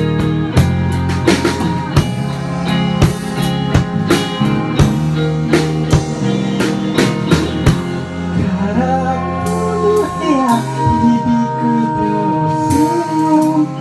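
Band music, an instrumental break: drum kit keeping a steady beat under guitar chords, with a sliding, held lead melody coming in about eight seconds in.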